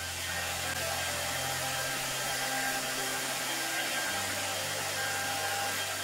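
Handheld hair dryer running with a steady blowing hiss, switched on at the start and cut off near the end.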